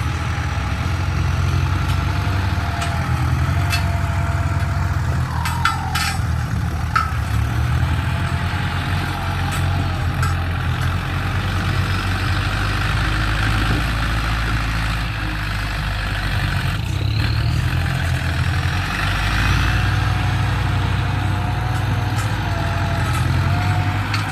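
Ford 6610 tractor's diesel engine running steadily at working revs, with a few short clicks and clanks over it.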